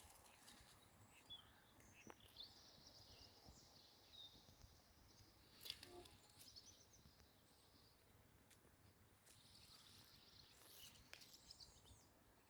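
Near silence: faint outdoor ambience with small birds chirping at intervals, and a few faint clicks.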